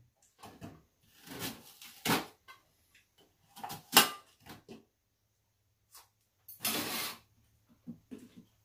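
Kitchen knife and cut fruit knocking and scraping against a stainless steel bowl: scattered clinks and scrapes, the sharpest about four seconds in, and a longer scrape of about half a second near the end.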